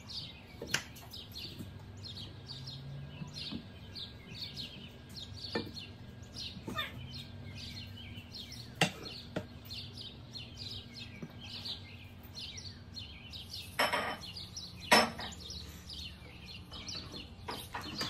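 A small bird chirping rapidly and repeatedly, with scattered knocks as potatoes and meatballs are set into a pot, and two louder clatters near the end.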